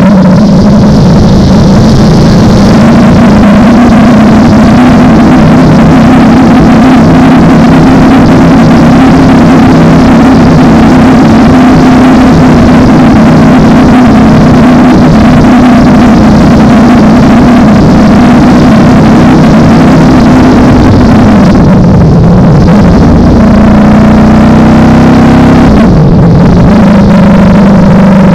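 Ducati Panigale V4's V4 engine running steadily under way. About 21 seconds in the revs drop and then climb again as the bike slows and accelerates, with a second quick drop and rise near the end.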